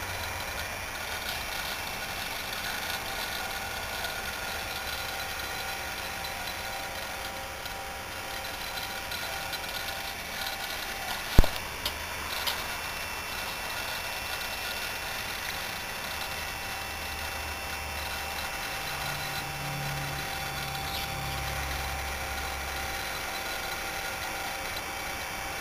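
Cooling fans and hard drive of a Silicon Graphics Indy print server running as it boots, a steady whirring hum with several steady tones. One sharp click comes about eleven seconds in.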